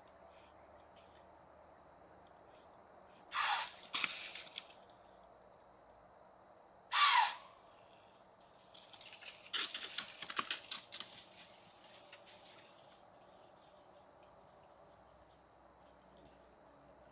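Two loud, harsh animal calls a few seconds apart, then a few seconds of rustling and crackling, over a steady high-pitched trill.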